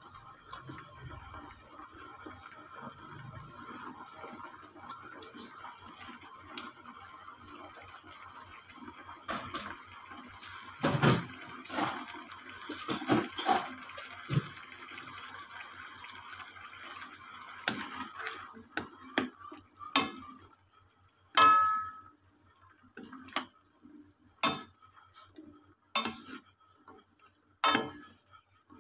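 Chicken liver in tomato sauce sizzling with a steady hiss in a non-stick wok while long beans are tipped in. From a bit past halfway, a wooden spatula stirs the beans and knocks against the wok in sharp separate clacks, one of them ringing briefly.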